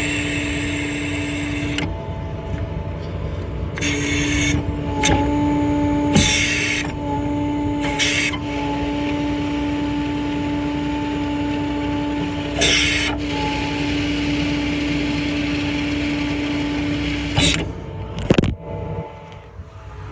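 Hydraulic outriggers on a service truck being lowered: the truck's 7.6 L International MaxxForce diesel runs under a steady hydraulic pump whine, with several short hissing bursts as the control levers are worked. The whine cuts off near the end, when the outriggers are down.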